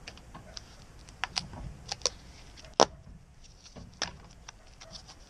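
Gorilla tape being pulled off its roll and wound around a bike rack hold-down arm: scattered sharp crackles and clicks, the loudest about halfway through.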